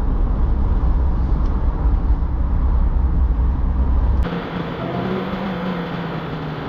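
Strong wind buffeting the microphone, a loud low rumble that cuts off abruptly about four seconds in, followed by quieter gusting with a faint wavering hum.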